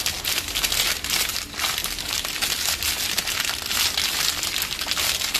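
Something crinkly being crumpled and squeezed, a continuous crackling rustle made of many small sharp crackles.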